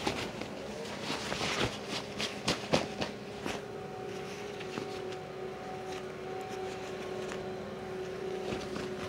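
A leaf blower drones steadily at one pitch, with several sharp knocks and clicks of handling in the first few seconds.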